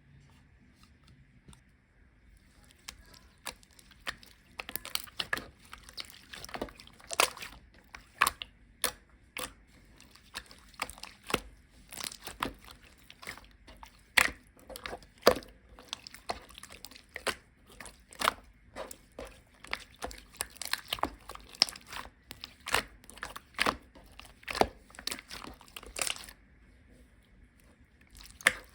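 Hands squeezing and stretching a runny slime that keeps melting, making an irregular run of sharp sticky pops and clicks. The popping starts a few seconds in and stops a couple of seconds before the end.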